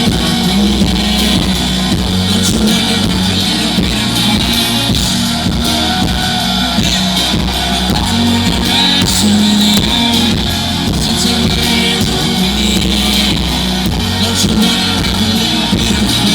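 Loud live band music with a steady beat, bass and guitar, and little or no singing.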